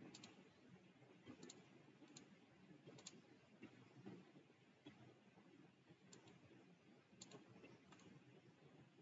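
Faint computer mouse clicks, single and in quick pairs, at irregular intervals over a low room hiss.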